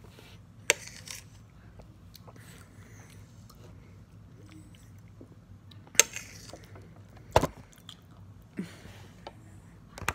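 Close-up eating sounds: a metal utensil clicks sharply against a plate three times, with quieter chewing and mouth noises in between.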